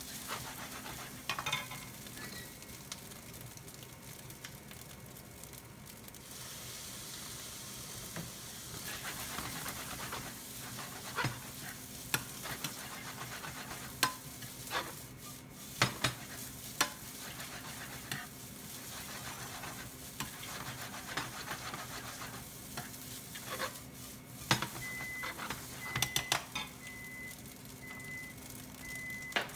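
Fried rice sizzling in sesame oil in a 28 cm GreenPan ceramic non-stick frying pan on an induction cooktop, stirred and pressed with a black ladle that knocks against the pan now and then. Near the end an evenly paced timer beeping starts, signalling the cooking time is up.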